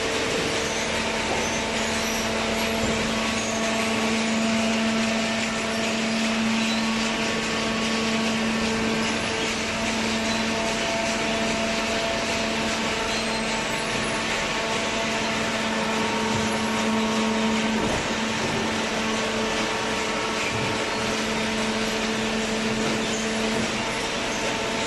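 Cardboard baling machine running steadily: a constant mechanical hum with several steady tones over a broad whirring noise. The lowest tone sets in about a second in and drops out near the end.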